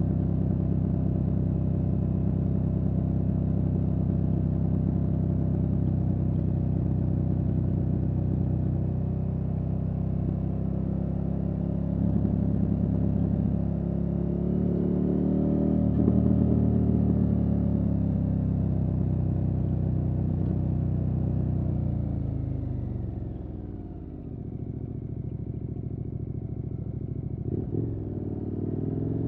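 KTM 1290 Super Adventure S's V-twin engine through a Wings aftermarket exhaust, heard from the rider's seat on the move. The engine note holds steady, rises as the rider opens the throttle about halfway, then falls away as the bike slows with the throttle closed. A short blip near the end comes before the note climbs again.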